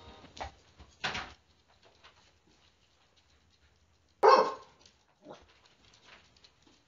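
A dog barks once, loudly, about four seconds in, with a few shorter, fainter sounds before and after.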